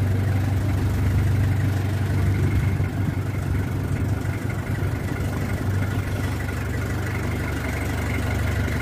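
A fishing boat's engine idling, a steady low hum with no change in speed.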